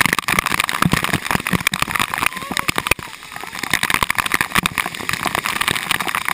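Water from overhead spray fixtures showering down onto the river surface and the waterproof action camera: a dense, rain-like patter of drops and splashes, easing a little about halfway.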